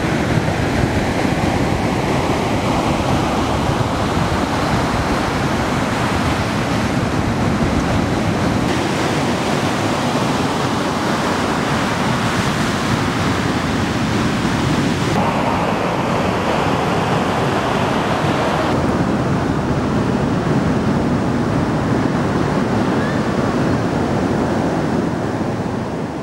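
Ocean surf breaking and washing up the beach, a continuous rush of water. Its character changes abruptly a few times, and it fades out near the end.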